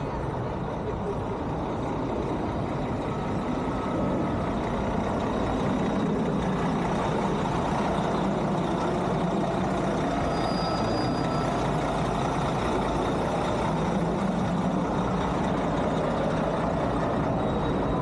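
Steady noise of a large motor vehicle's engine and road traffic, a little louder from about four seconds in.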